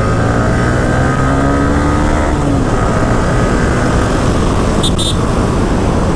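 Yamaha R15 V3's single-cylinder engine running under way, heard from the rider's seat under a rush of wind, its pitch rising as the bike accelerates between about one and two and a half seconds in. Two brief high peeps come about five seconds in.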